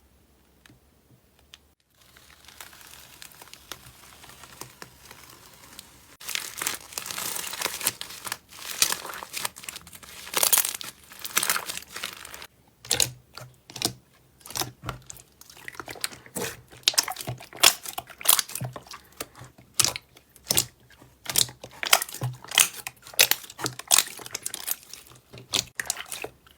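Slime being worked by hand, making a dense crinkling crackle, then a run of sharp crackles and pops several times a second. The sound starts after about two seconds of quiet.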